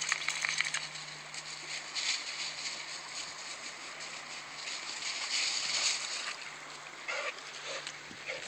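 Dry fallen leaves crunching and rustling under a dog's paws and people's feet, irregular and crackly, over the steady rush of a shallow creek.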